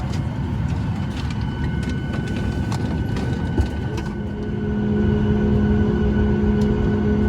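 Steady low rumbling noise, with a single click about three and a half seconds in. About four seconds in, a held droning chord of background music comes in and grows louder.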